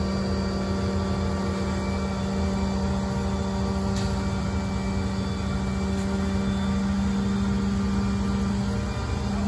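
Mobile crane's diesel engine running at a steady speed, a constant drone with a strong low hum, as it hoists a boxcar.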